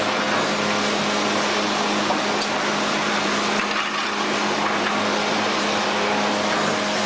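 Factory machinery running steadily, an even mechanical noise over a constant low hum.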